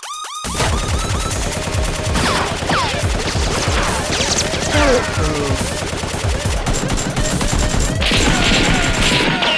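Sustained rapid gunfire: automatic bursts overlapping in a continuous firefight, with falling whistling tones scattered through it.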